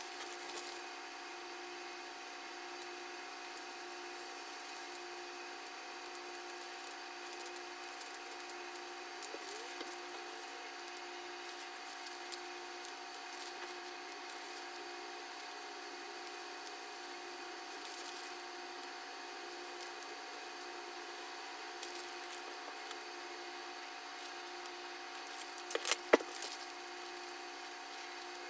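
Steady hum made up of several fixed tones, with scattered faint taps and a quick cluster of louder knocks about 26 seconds in.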